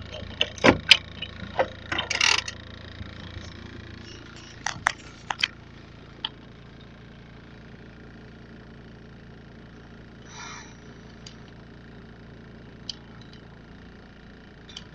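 Sharp clicks and knocks in the first few seconds, the loudest sounds here, over the low steady hum of a Mercedes E290 TD's five-cylinder turbodiesel idling, heard from inside the cabin. The hum drops quieter about four seconds in, and a few small clicks of the stereo's knob and buttons follow.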